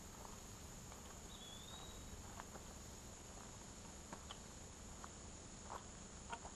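Quiet summer woodland ambience: a steady high insect drone, one short bird whistle that dips and rises about a second and a half in, and scattered faint ticks and crackles.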